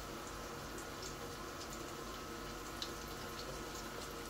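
Pork chops frying quietly in a pan on an induction hob: a low, steady sizzle with a few small pops.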